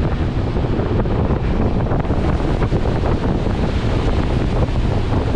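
Steady rush of wind on the microphone over the running noise of an LHB passenger train crossing a long rail bridge.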